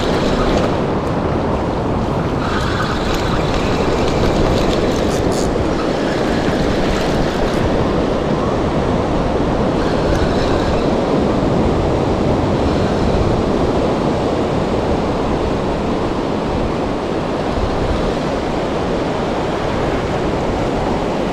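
Surf washing onto a beach, mixed with steady wind buffeting the microphone.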